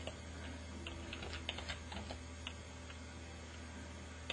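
A short, irregular run of computer keyboard keystrokes, fairly quiet, over a low steady hum.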